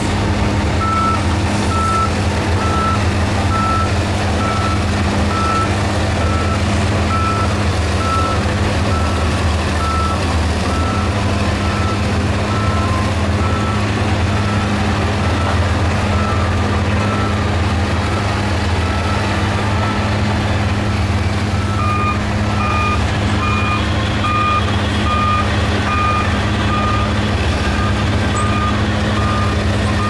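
Heavy diesel earthmoving machinery (a Shantui crawler bulldozer and dump truck) running steadily with a constant low engine drone. A reversing alarm beeps just over once a second through the first two-thirds, and a second, higher two-tone reversing alarm starts beeping a little over twenty seconds in.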